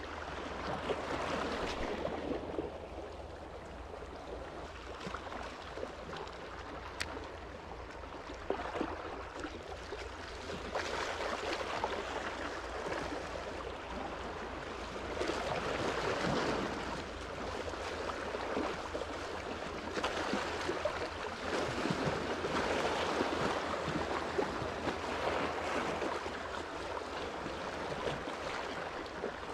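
Small sea waves washing in and receding along the shore, swelling and easing every few seconds.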